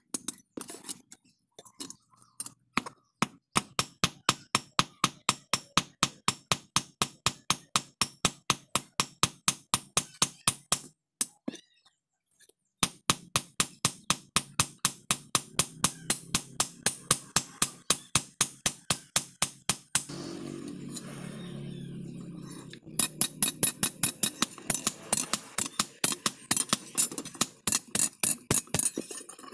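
Blacksmith's hand hammer striking iron tongs on an iron anvil in fast, regular blows, about four a second, in long runs broken by short pauses.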